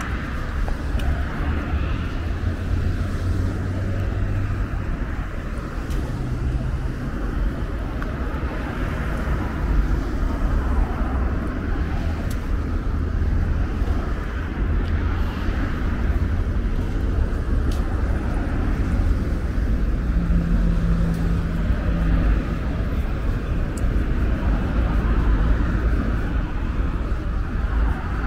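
Road traffic on a multi-lane city street: cars driving past with a steady rumble of engines and tyres, and an engine hum that rises and fades as single vehicles pass.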